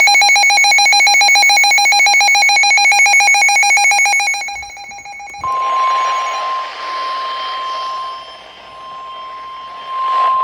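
Emergency Alert System alert tones: a harsh, rapidly pulsing electronic alarm tone for about five seconds, then a steady single-pitched tone over radio hiss, the NOAA Weather Radio warning alarm tone that signals a new warning is about to be read.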